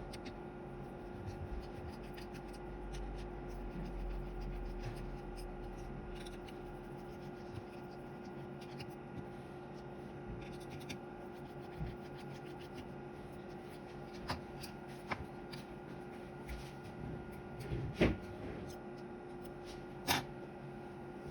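Small screws being taken out of a handheld radio's plastic case and the parts handled: scattered light clicks and rubbing, with two louder knocks near the end, over a steady background hum.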